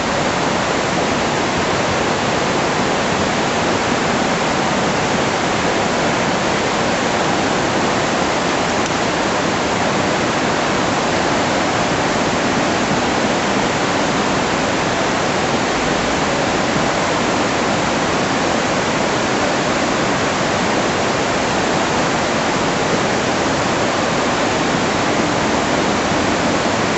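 Loud, steady rush of floodwater from a river in spate, an even noise that doesn't let up.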